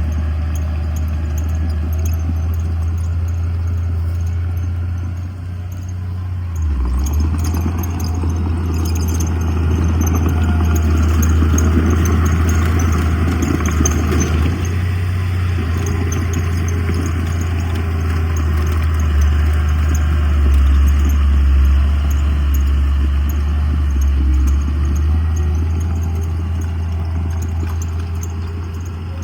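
Heavy diesel earthmoving machinery running with a steady low engine drone. It swells under load from about 7 to 15 seconds in, over a faint light clatter.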